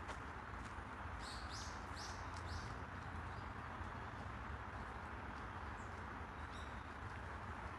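A small bird chirping: a quick run of four or five short high calls about a second in, and a couple more near the end, over a steady outdoor background hum.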